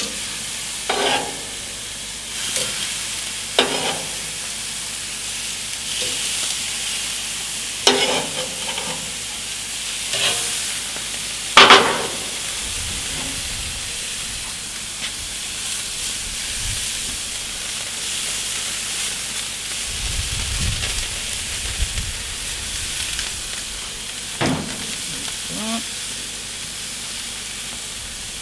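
Pork chops sizzling on a gas grill, a steady hiss, with sharp clacks of metal tongs against the grate as the chops are laid on, the loudest about 12 seconds in.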